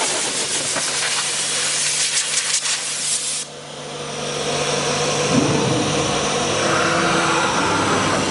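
CNC router cutting a door panel into MDF: a loud, steady hiss of the spinning bit in the board over a low hum. The hiss cuts off abruptly about three and a half seconds in, and a steadier machine hum builds back up.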